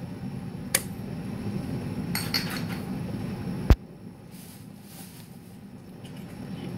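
A few light clinks and knocks of kitchen utensils and dishes, with one sharp click a little over halfway through, over a low steady background hum that fades after the click.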